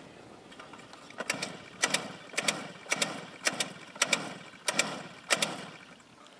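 Combustion engine of a large scale model helicopter being started: a regular run of mechanical clatters, nearly two a second and beginning about a second in, each a sharp click followed by a short whirr.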